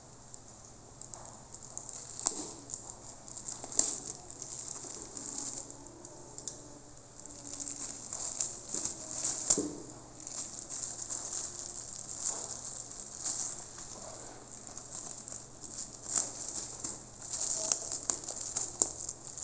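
Thin clear plastic wrap crinkling and crackling irregularly as it is cut open and pulled off a soundbar by hand.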